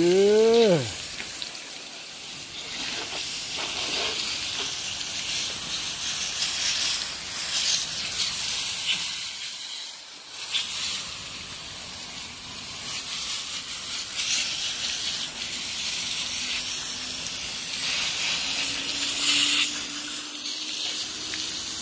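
Water from a garden hose spray nozzle blasting onto a 5.3 V8 engine block: a steady hiss with splashing that shifts in strength as the spray moves over the engine, rinsing off oven-cleaner degreaser. A short, loud squeal that rises and falls in pitch comes right at the start.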